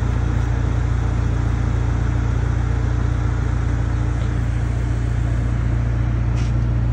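Steady, unchanging low motor drone, with a faint click near the end.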